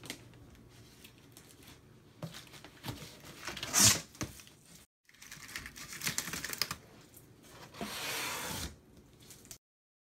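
Plastic wrap and packing being handled and pulled off: irregular crinkling, rustling and tearing in bursts, the loudest about four seconds in. The sound cuts to dead silence shortly before the end.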